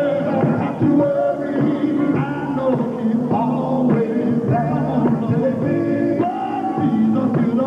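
Live gospel quartet music: a band playing with male voices singing.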